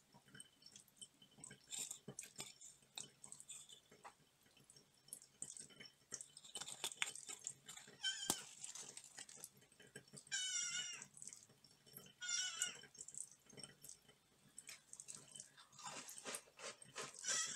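A cat meowing a few times in short, high, wavering calls, with pauses between them. Under the calls, faint crackles and clicks of a crunchy oat cookie being handled and broken apart by hand.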